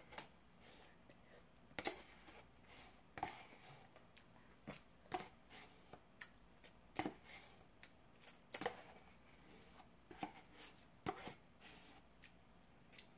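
Metal spoon scraping and clicking against the inside of a paper ice cream tub in faint, scattered short strokes, scraping the last of the ice cream out of the nearly empty tub.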